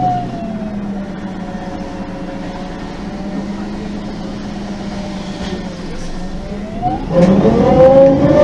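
MAN NG 273 M18 articulated bus's LPG engine and Voith automatic driveline, heard from on board. A whine falls slowly as the bus slows. About seven seconds in, the engine revs up, the sound grows much louder and the whine rises as the bus accelerates away.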